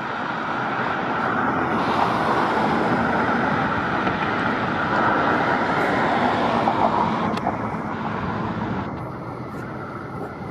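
Outdoor engine noise: a broad, steady roar that builds over the first couple of seconds and eases off after about eight seconds.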